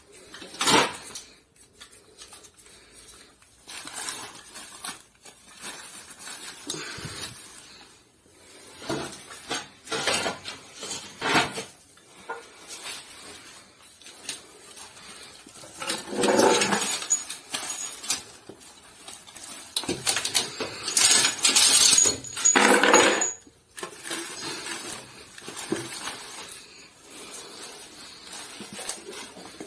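Clinks and knocks of hard, mostly metal gear being handled, like camping cookware and utensils knocking together. There are longer, louder bouts of handling about sixteen seconds in and again from about twenty to twenty-three seconds.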